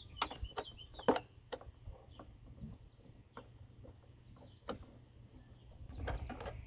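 Screwdriver turning flathead screws out of a plastic battery case, giving irregular small clicks and scrapes, the sharpest about a second in. Birds chirp faintly in the background.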